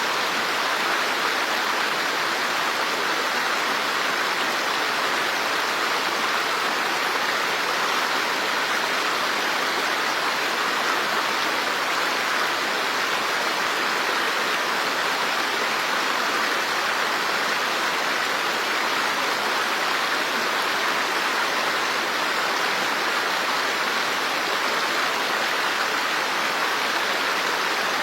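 Rushing water, a steady hiss with no breaks or changes.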